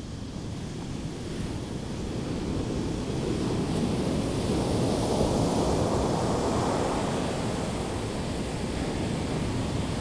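Surf on a sandy beach: the rush of a wave breaking and washing up swells to a peak about midway and then slowly eases.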